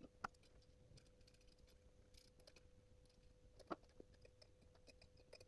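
Near silence: faint room tone with a faint steady hum and a few soft clicks, one about a quarter second in and another a little before four seconds in.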